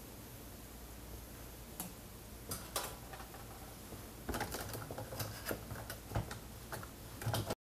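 Clicks and knocks of hard plastic as hands handle the Roborock robot vacuum's plastic housing: a few scattered clicks at first, then a quick irregular run of them in the second half, which stops abruptly near the end. A faint steady low hum runs underneath.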